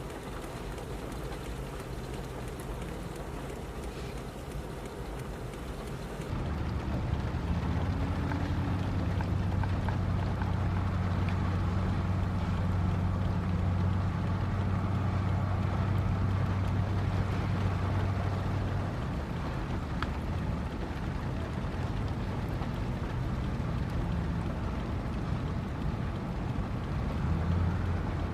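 Heavy diesel engine of construction machinery running with a steady low drone. It gets louder about six seconds in, eases off after about nineteen seconds and picks up again near the end.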